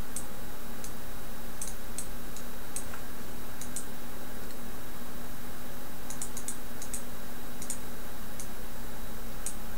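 Scattered sharp clicks of a computer mouse and keyboard, some in quick runs of three or four, over a steady electrical hum and hiss.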